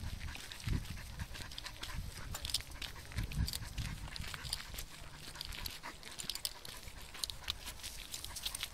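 Running footfalls on a dirt trail with panting, and dry grass rustling as it brushes past.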